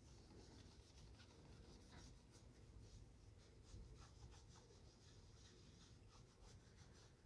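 Faint, quick rubbing strokes on a leather shoe as it is being shined.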